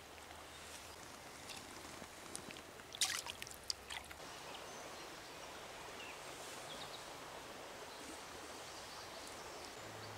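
Trout stream flowing steadily over riffles, with a short cluster of sharp clicks about three seconds in.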